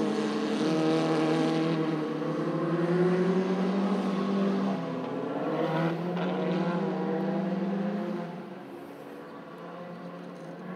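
Autocross race car engine revving hard, its pitch climbing and falling with each gear change and throttle lift through a corner. It fades after about eight seconds as the car pulls away.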